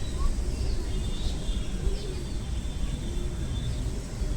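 Morning outdoor ambience: a steady low rumble, with a few short high bird chirps scattered through it.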